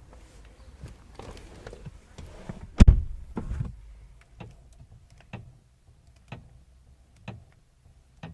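Clunks inside a VW Passat CC: a loud, sharp knock about three seconds in and a second one just after, then light knocks about once a second.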